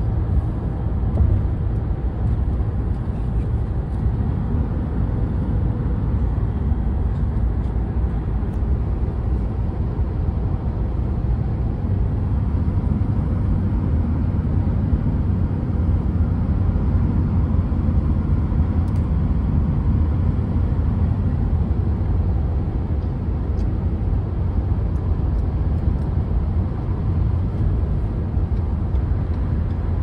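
Steady road and engine noise heard inside the cabin of a moving car, a low, even drone that holds constant throughout.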